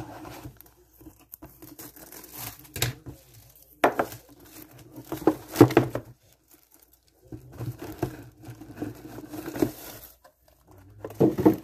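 Clear plastic shrink-wrap being torn and crumpled off a cardboard model-kit box, with a handful of louder rips among irregular crinkling, while the cardboard box is handled and opened.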